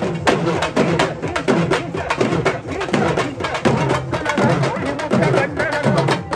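Music driven by rapid percussion, drum and wood-block strikes in quick succession, with a wavering melody line over them.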